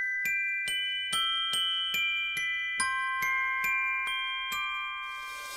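A slow melody of bell-like struck notes, about two or three a second, each note ringing on under the next, with the last note struck a little before the end and left to ring out.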